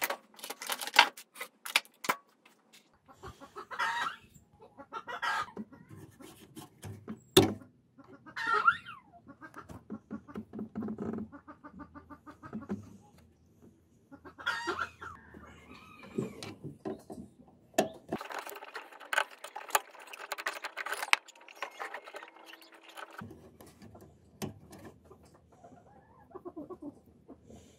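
Sharp clicks and knocks of plastic and metal parts handled by hand, with chickens clucking in the background.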